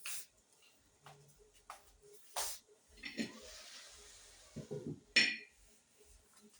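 Kitchen clatter of dishes and utensils: scattered knocks and clicks, a short hiss in the middle, and a sharp ringing clink about five seconds in.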